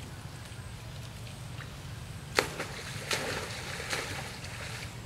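A monkey splashing in pond water: a sharp smack about halfway through, then about a second of splashing.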